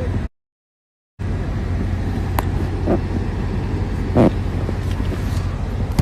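Steady low rumble of background noise, cut by about a second of total silence near the start where the live stream drops out. A few brief knocks sound over it, the loudest about four seconds in.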